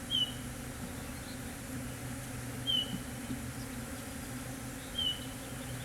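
Honey bees buzzing steadily around an open hive, a low even drone. A short high chirp sounds three times over it, about every two and a half seconds.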